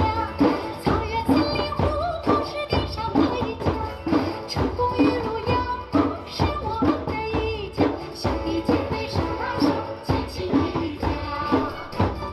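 A group playing African hand drums (djembes) in a steady beat, with a melody running over the rhythm.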